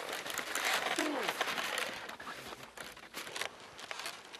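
Dry, frozen snow crunching under footsteps and the runners of a horse-drawn sled, in a quick, irregular crackle. It is louder in the first half and softer after about two seconds.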